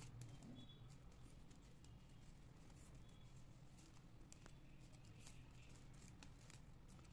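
Faint scattered clicks and ticks of plastic craft-wire strands knocking and rubbing together as they are handled and pulled into a knot, over a low steady hum.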